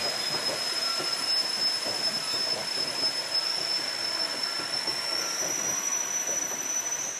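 Narrow-gauge passenger cars rolling across a wooden trestle, their wheels giving a steady high-pitched squeal that steps up slightly in pitch about five seconds in, over the rolling rumble of the wheels on the rails.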